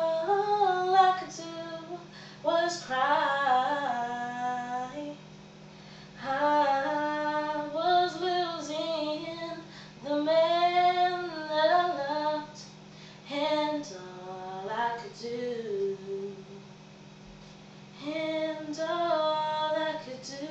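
A woman's voice singing unaccompanied, in long sliding vowel runs with no clear words, in about seven phrases with short breaks between them.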